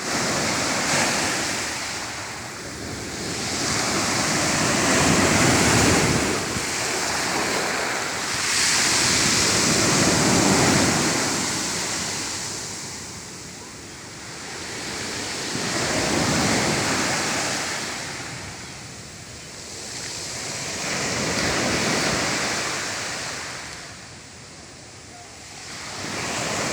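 Sea waves breaking and washing up the shore, the surf swelling and dying away every five or six seconds.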